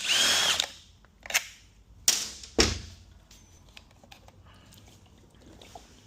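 Power tool whirring in two short bursts about two seconds apart, followed by light clicks and clatter of parts and tools.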